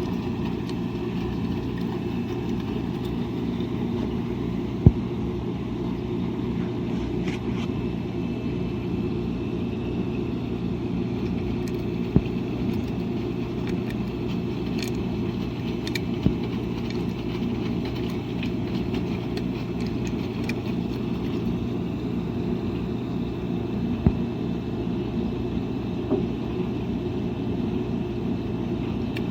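Washing machine running with a steady low hum and rumble, with a few sharp clicks or knocks at irregular intervals.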